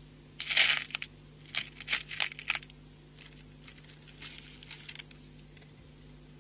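Small beads clicking and rattling against one another as they are picked up and strung onto the thread, in a few short clusters, the loudest about half a second in.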